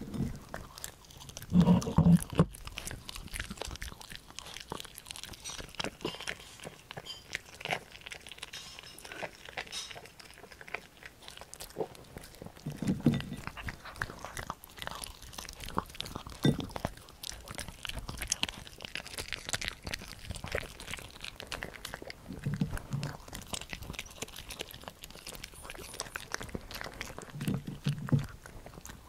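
Poodle chewing and crunching air-fried tofu treats with carrot and spinach, close to the microphone: a run of wet clicks and smacks, with a few louder low thumps.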